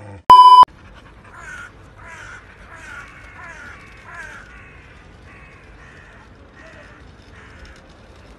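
A loud electronic beep, one steady tone about a third of a second long, comes just after the start. It is followed by a faint run of short, falling, high-pitched calls or squeaks, about two a second, that die away near the end.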